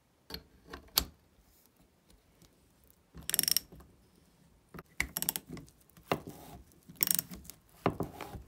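Socket ratchet wrench clicking in repeated short bursts as it is swung back and forth, turning the bolt of a homemade rivet-nut setting tool to compress a rivet nut into a steel tube. A couple of sharp metal clicks come first, about a second in.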